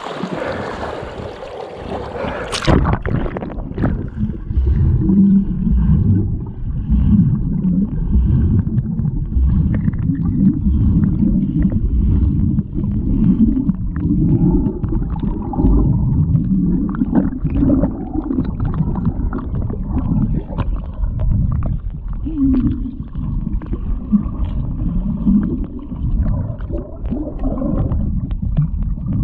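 Water sloshing and gurgling as people wade through deep water, with irregular surges of churning; about three seconds in the sound turns muffled and low, as if the microphone has gone into or under the water.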